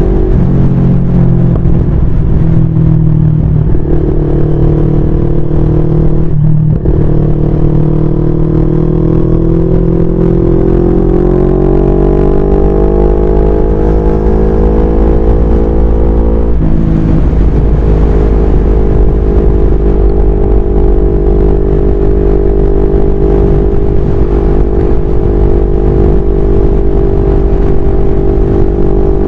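CFMoto 400NK's parallel-twin engine under way at expressway speed: the revs climb steadily for several seconds, drop sharply at an upshift about sixteen seconds in, then hold steady. Strong wind rumbles on the microphone.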